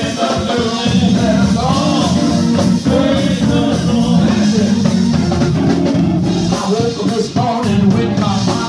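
Live gospel praise music: an electric console organ holding chords and a drum kit keeping the beat, with a singer's voice over them.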